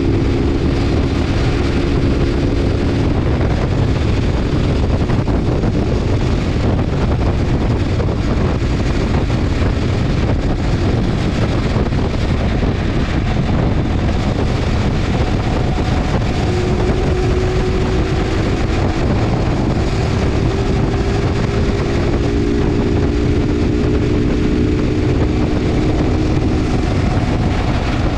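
Motorcycle engine running steadily at highway cruising speed, under heavy wind rush on the microphone. Its engine tone drops into the wind for much of the middle and comes through clearly again over the last third.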